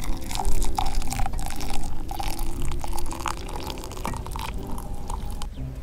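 Hot water pouring from a stainless steel pot into a mug over a tea bag, splashing as the mug fills. The pour stops shortly before the end.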